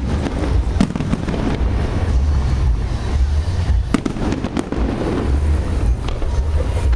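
Aerial fireworks display going off continuously: deep booming shell bursts overlapping into a steady rumble, with sharp cracks standing out about a second in and about four seconds in.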